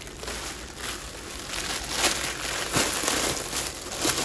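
Packaging crinkling and rustling in irregular crackles as it is pulled open to take out a tote bag.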